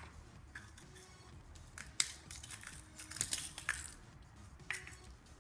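Slime with crystals mixed in being worked and squished with a plastic spoon: irregular crackling and squishing. The loudest bursts come about two and three seconds in.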